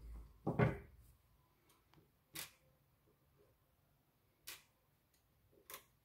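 Small plastic parts of a car power window switch being handled on a wooden table: a dull knock or two in the first second, then three short sharp clicks spread over the rest.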